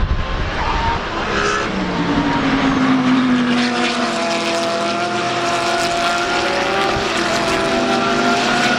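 Several race car engines running at speed on a circuit at once, their pitches gliding slowly downward as the cars pass and recede, loudest a couple of seconds in.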